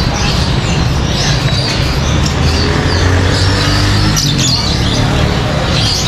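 Caged birds chirping and tweeting in a bird shop, over a steady low rumble.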